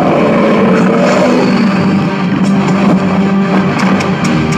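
Film soundtrack from a hyena fight scene: a dense rumbling mix of sound effects over a steady, low held musical drone, with a few sharp clicks near the end.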